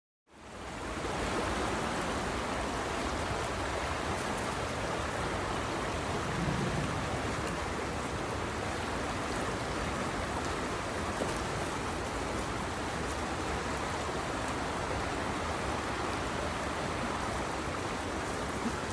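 Creek water flowing and rushing, a steady even wash of noise.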